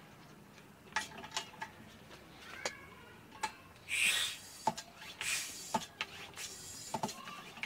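A hand working the pump on the fount of a vintage Coleman 133 table lantern. There are scattered clicks and a few short hissing rubs, the loudest about four seconds in.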